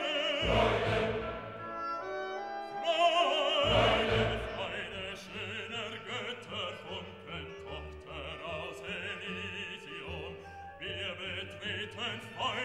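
Background classical music: an operatic voice singing with vibrato over orchestral accompaniment, with deep bass notes coming in twice early in the passage.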